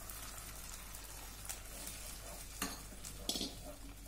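Faint sizzling of sweet corn batter poured into a hot buttered pan of sautéed carrots and corn. A wooden spatula makes a few short scrapes as it stirs.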